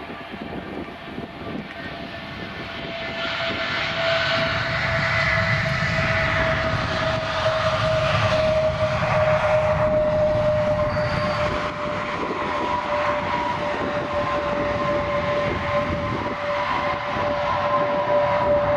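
Jet engines of a Wizz Air Airbus A320-family airliner rolling out on the runway after landing: a rushing noise that swells from about three seconds in, over a steady whine that slowly falls in pitch.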